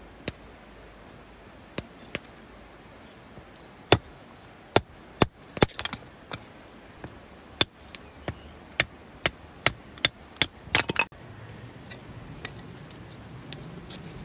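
Blade chopping into a piece of wood, roughing out a wooden spoon blank. Sharp, separate strikes, spaced irregularly at first, then a steady run of about two a second, ending in a quick flurry of strikes.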